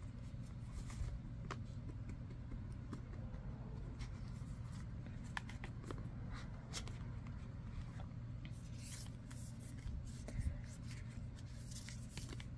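Hexagonal tarot cards being squared up and shuffled by hand: soft scrapes and light taps of card stock, busier about two-thirds of the way in and at the end, over a steady low hum.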